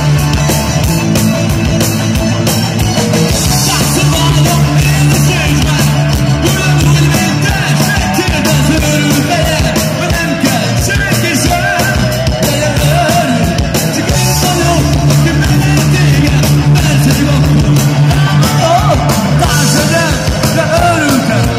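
A live rock band playing loud through a PA, with electric guitars, keyboard, drums and a male singer whose voice comes in over the band about a third of the way through.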